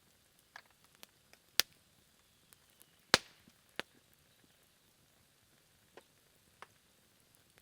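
Low wood campfire burning down toward embers, giving off scattered sharp crackles and pops. The loudest pop comes about three seconds in, after a strong one a second and a half earlier, with fainter ticks in between.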